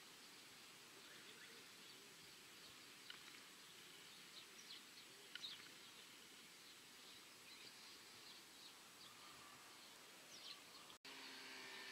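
Near silence: faint outdoor ambience with scattered short, faint bird chirps, cutting out briefly near the end.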